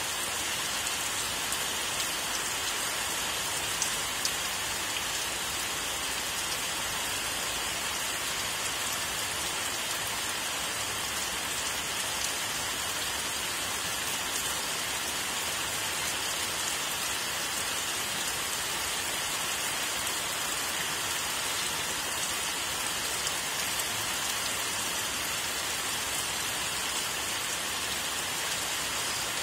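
Steady rain falling, an even hiss of many drops with no thunder.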